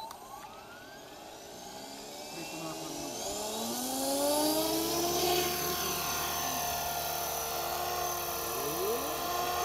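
Electric RC scale helicopter, an Align T-Rex 500 in an Airwolf fuselage, spooling up for takeoff. The motor and rotor whine rises steadily in pitch for about five seconds, then holds at a steady pitch and grows a little louder.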